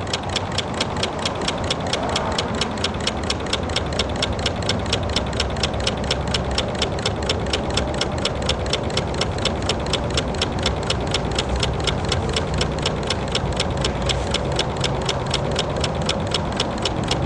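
DIY Stirling engine with a 6-inch flywheel running steadily, making a regular clicking roughly four to five times a second. It is running on stored heat alone, with no sunlight on its hot end.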